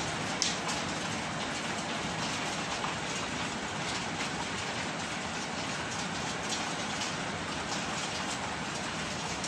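Hailstorm: hail and rain pelting brick paving in a dense, steady clatter of small sharp ticks, with one harder strike about half a second in.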